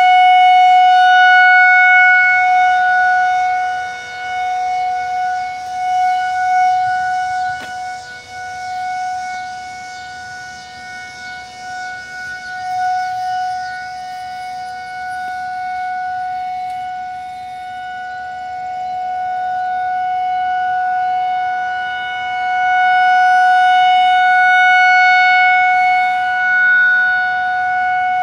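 Federal Signal 2001-SRN rotating outdoor warning siren sounding a steady tone, loud at first, fading through the middle and swelling again near the end as the rotating horn turns away and back. It is sounding for a severe thunderstorm warning.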